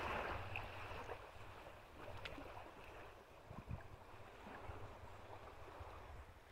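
Faint seaside ambience: wind rumbling on the microphone over a soft wash of small waves, easing off after the first second or so, with a few faint clicks.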